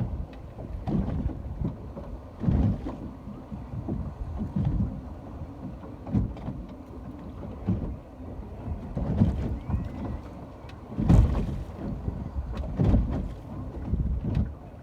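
Sea water sloshing and lapping in irregular low surges every second or two, mixed with wind buffeting the microphone.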